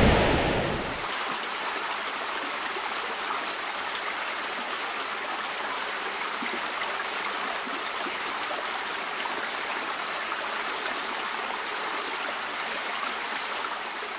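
A river in flood, its muddy water rushing down a concrete channel in a steady hiss of running water. A louder low rumble cuts off about a second in.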